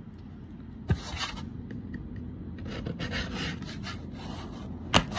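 Hands handling a kraft cardboard box, the cardboard rubbing and scraping, with a sharp click about a second in and a louder tick near the end.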